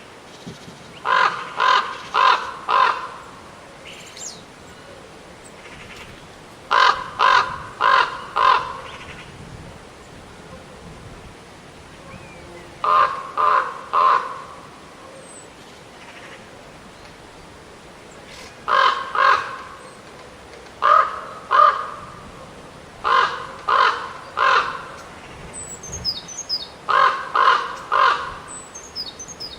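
A corvid cawing in quick runs of three or four harsh calls, about seven runs spaced a few seconds apart. A few faint high chirps come near the end.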